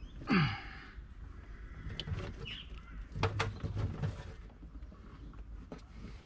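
Handling noise as electrical wiring and a corrugated hose are pushed and tucked into place behind a poly bait tank: rubbing, with scattered clicks and knocks. A short squeak falls in pitch about a third of a second in.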